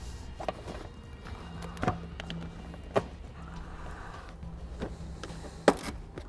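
A few sharp plastic clicks and knocks, four in all with the loudest near the end, as a plastic push pin and sill plate trim panel are pressed back into place.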